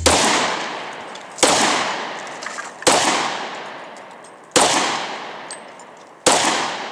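Five pistol shots fired slowly, about one every second and a half, each a sharp crack followed by a long echo that dies away.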